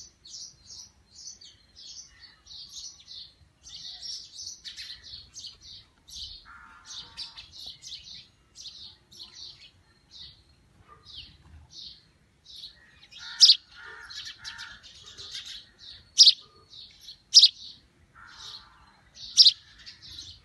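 Young sparrow chirping: a quick, continuous run of short high chirps, with four much louder, sharper chirps in the last third.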